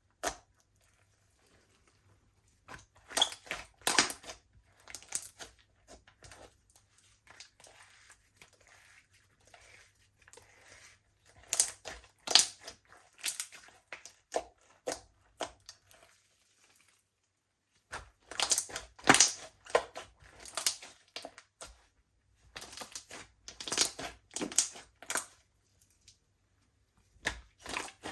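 Slime being squeezed and kneaded by hand, giving bursts of sticky crackling pops separated by quiet pauses.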